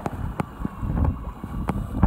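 Wind buffeting the microphone on a boat at sea over choppy water, a gusty low rumble, with a faint steady hum and a few sharp clicks.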